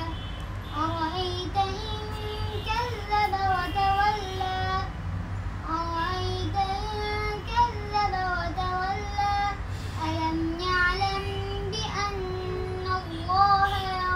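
A young boy chanting an Islamic prayer (dua) in a melodic recitation voice, with long held notes that bend and turn, broken by short pauses for breath.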